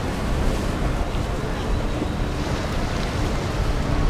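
A motorboat running, its engine sound mixed with rushing water and wind buffeting the microphone, all at a steady level.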